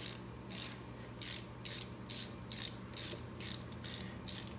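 Hand ratchet tightening the brake caliper bolts, its pawl clicking in quick repeated strokes, about two to three a second.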